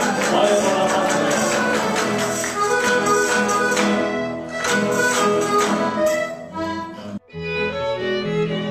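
A Spanish tuna playing an instrumental passage: strummed guitars and bandurrias with tambourines. About seven seconds in it cuts off abruptly and different string music starts.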